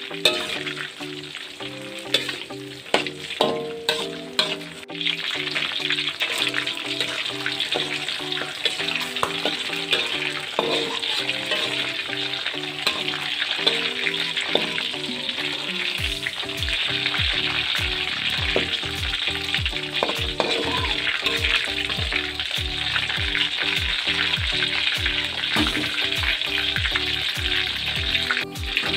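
Hot oil sizzling and crackling in a wok as red curly chilies, bird's-eye chilies, garlic cloves and kaffir lime leaves fry briefly before being ground into sambal paste. A few sharp clicks come in the first five seconds.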